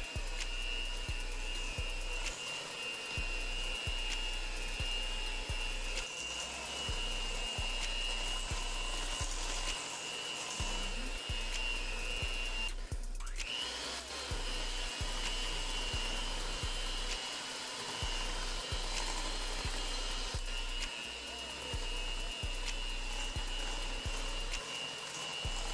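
Electric mixer motor whirring steadily as it beats cake batter. It cuts out briefly about halfway through and spins back up. A background music beat runs underneath.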